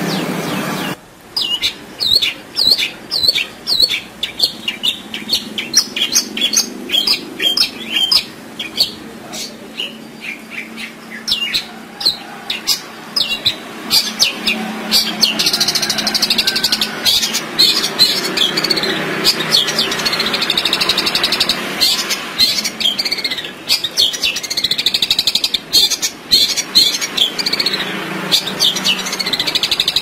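Long-tailed shrike (cendet) singing loudly, a fast, varied song packed with imitated calls: a run of sharp, rapid chirps starting about a second in, then denser rolling, warbled trills.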